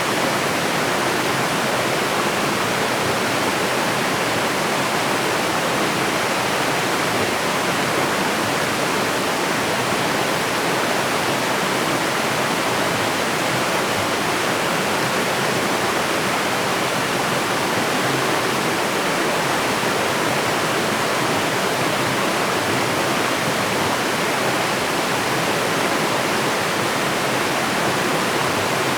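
A waterfall pouring: a loud, even rush of falling water that holds steady without change.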